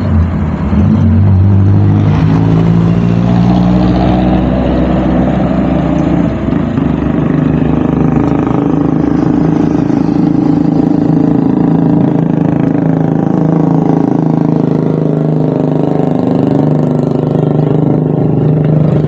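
Road traffic passing close by: vehicle engines running and accelerating, a continuous drone whose pitch shifts as vehicles go past.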